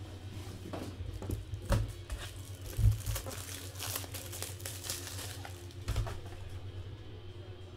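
Trading cards and crinkly plastic packaging being handled, with a few light knocks on the table, over a steady low hum.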